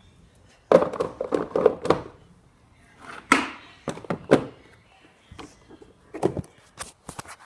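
Thunks and knocks of objects being handled, in three short clusters with pauses between them.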